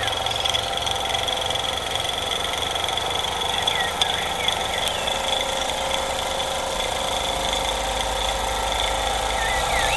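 SteamCo STC01 model steam engine running steadily at speed: a fast, even mechanical beat with a steady hiss. A few short high chirps come through about four seconds in and again near the end.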